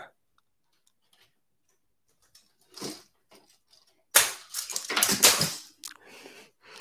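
Handling noise: a few faint clicks, then a loud burst of rustling and clattering lasting about a second and a half, ending in a single click.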